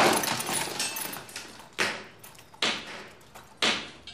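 Someone rummaging through the contents of a handbag: rustling and small objects knocking and jangling, a longer bout at first and then three short sharp bursts about a second apart.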